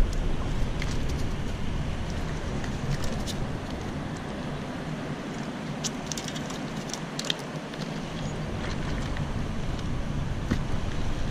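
Steady rushing outdoor noise with a low rumble, and scattered light clicks and taps from handling a freshly caught skipjack herring and the fishing tackle.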